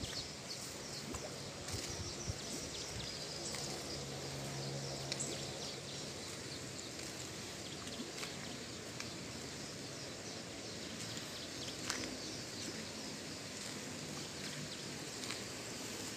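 Quiet outdoor background beside an irrigation canal: a steady faint hiss of flowing water with light, high-pitched chirping over it and a few small ticks.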